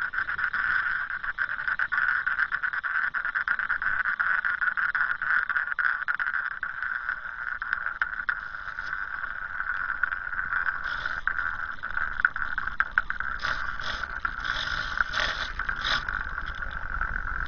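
RC helicopter's motor and rotor running steadily, heard from a camera riding on the spinning rotor: a constant high whir. A few sharp knocks stand out near the end.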